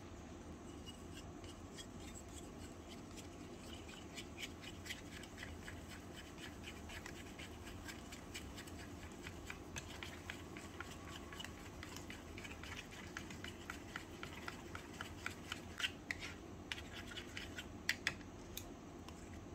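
Small silicone spatula stirring and scraping a thick white mixture in a tiny stainless steel bowl: a quick run of soft scrapes, about three to four a second, with a few sharper clicks against the metal near the end.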